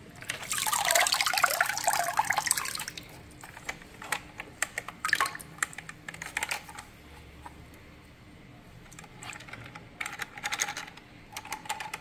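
Water splashing in a plastic tub for about three seconds as a toy remote-control shark is grabbed and lifted out. Then scattered drips and light clicks and taps as the wet toy is held over the water.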